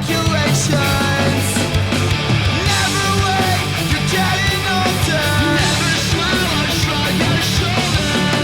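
Loud punk/metal rock music with distorted guitars and a driving beat.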